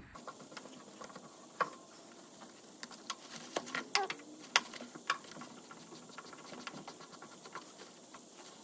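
Irregular light clicks and taps of a hand-held Torx driver on a plastic blower housing while a T27 screw is backed out.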